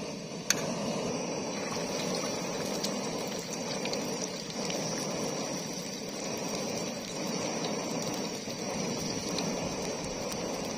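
Hot oil sizzling and bubbling steadily as a square of battered food deep-fries in a small camping pot. A single sharp click about half a second in.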